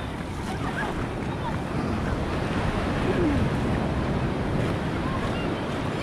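Surf washing up the beach: foamy swash rushing over wet sand close to the microphone, growing louder over the first few seconds as a wave runs in, then holding steady.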